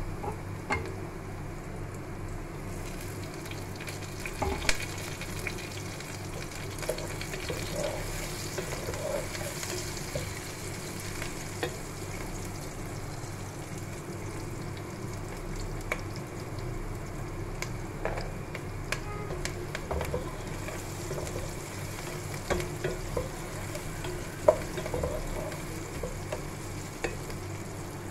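Sliced onions and green chillies sizzling as they fry in oil in a pan. There are occasional knocks of a wooden spatula against the pan as they are stirred, with sharper ones about four and a half seconds in and near the end.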